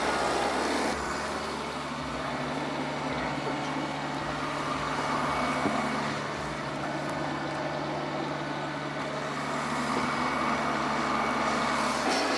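Large Stihl two-stroke chainsaw running steadily at a held engine note, cutting into a big log.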